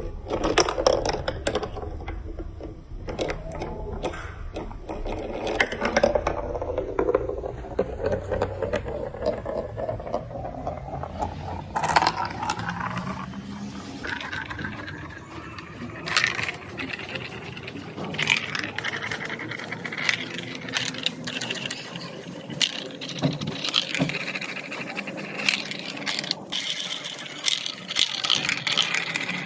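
Marbles rolling and clattering along a plastic building-block marble run, with many sharp clicks and clacks as they drop and hit the track pieces.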